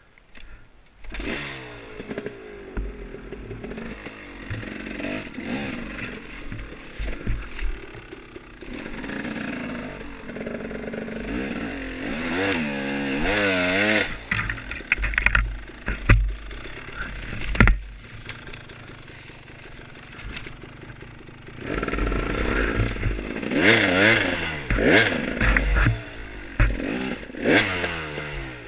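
Off-road motorcycle engine revving up and down over and over as the bike is ridden, with a few sharp knocks and rattles along the way. It starts up loud about a second in, after a quieter moment.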